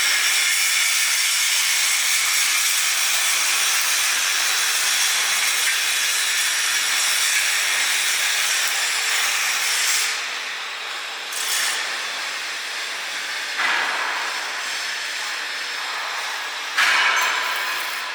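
Steady hissing metalworking noise of a fabrication shop floor, such as welding or grinding on machine steel. It changes abruptly about ten seconds in, again near fourteen seconds and near seventeen seconds.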